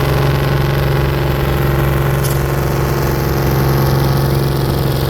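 Diesel engine of a 1967 Versatile four-wheel-drive tractor, a Cummins 352 V6, running steadily at a low, even speed. There is a short high hiss about two seconds in.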